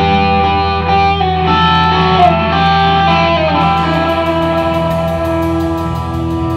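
Live rock band playing an instrumental passage: electric guitars ring out long held notes, one bending in pitch about two seconds in, over bass guitar. About halfway through, the drummer's cymbal comes in with a steady, quick tick.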